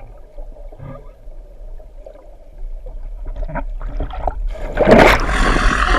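Water moving under a low rumble of wind, then a loud rushing splash about five seconds in as a whale slaps the water close by.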